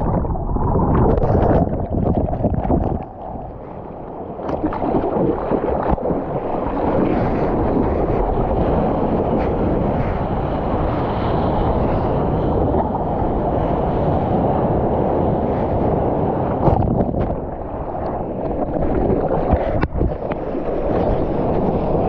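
Sea water rushing and splashing around a surfboard right at an action camera's microphone, with wind buffeting the mic. The noise dips briefly about three seconds in, and a couple of sharp knocks come near the end.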